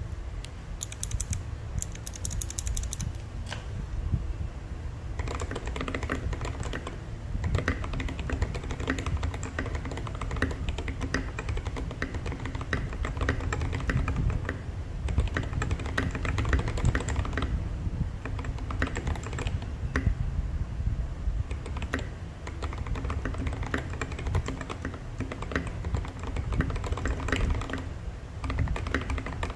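Typing on a 68-key mechanical keyboard fitted with lubed Boba U4T switches: a continuous, irregular stream of keystroke clacks, sparser for the first few seconds and then fast and dense. This is a sound test of the lubed switches.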